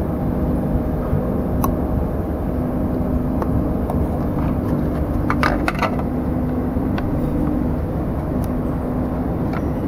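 Steady low rumble of background noise with a faint hum that drops in and out, and a few light clicks, a cluster of them about halfway through.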